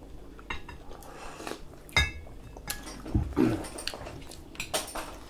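Spoons and crockery clinking and knocking on plates and the table during a meal: a few separate small clinks, the sharpest about two seconds in, with a brief voice-like sound shortly after.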